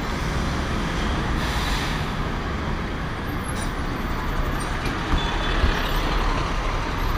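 Busy city traffic picked up by a car dashcam's built-in microphone: a steady low rumble of engines and tyres, with a double-decker bus right alongside. A brief hiss comes about one and a half seconds in.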